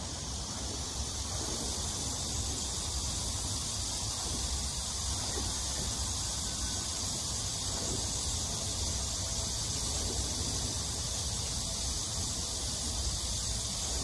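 Steady, high-pitched buzzing of a summer insect chorus, over a low rumble.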